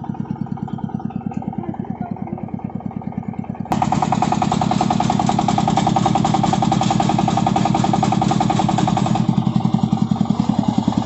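Single-cylinder diesel engine of a công nông two-wheel tractor running under heavy load with a steady, rapid beat as it hauls a trailer of fresh cassava up a rocky slope with a winch. About a third of the way in it suddenly gets louder and stays so.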